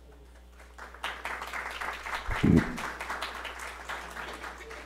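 Audience applauding, starting about a second in and fading out near the end, with a single dull low thump about halfway through.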